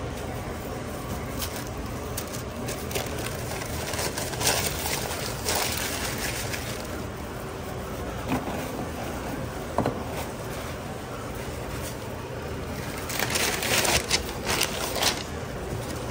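Food-prep handling noises: rustling and crinkling of plastic gloves, bag and paper as a wrap is bagged and napkins are pulled, with a sharp click about ten seconds in. Near the end a knife scrapes across a plastic cutting board in several scratchy strokes, over a steady background hum.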